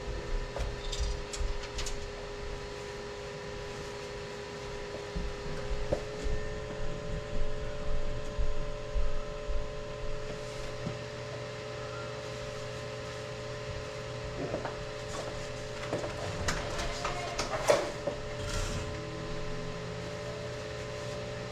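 Pellet stove's blower fans running with a steady hum of several fixed tones, one of which steps slightly higher about six seconds in. Low thumps and scattered light knocks and clicks sound over it.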